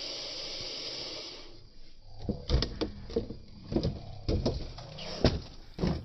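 A steady hiss at first, then from about two seconds in an RC rock crawler tumbling down a rock face: a string of hard knocks and clatters as its body and tyres strike the rock, the loudest about five seconds in.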